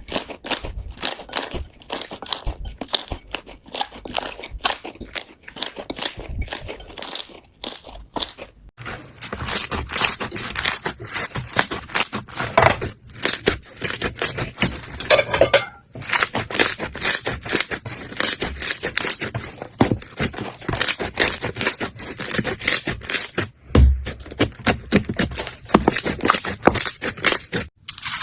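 Slime being squeezed and worked by hand, giving a dense run of crackling clicks and pops, with the texture changing abruptly a few times.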